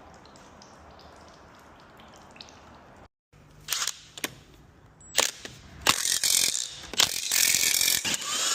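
Ratchet spanner working on bolts: short bursts of ratcheting clicks starting about halfway through, then longer runs near the end. Before that there is only faint background.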